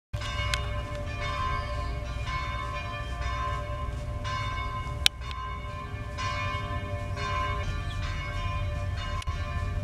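Church bell tolling, struck about once a second, each stroke ringing on into the next, over a steady low rumble. A single sharp click about halfway through.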